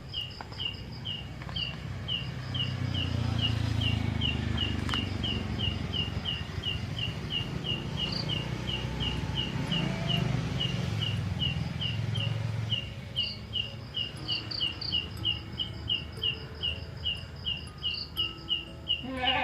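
A strange night call from an unseen animal: short, high chirping pips repeated evenly, about two to three a second, throughout. A low rumble runs underneath through the middle.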